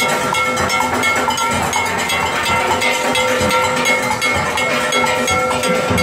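Steelband playing live: struck metal percussion clangs on a steady beat, the loudest part, over steel pans holding sustained rolled notes.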